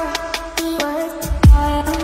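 Electronic background music: a synth melody over regular hi-hat ticks, with a deep bass hit that drops in pitch about one and a half seconds in.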